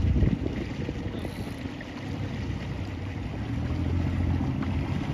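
Low, steady rumble of a motorboat engine running slowly. It eases a little about two seconds in, then builds again.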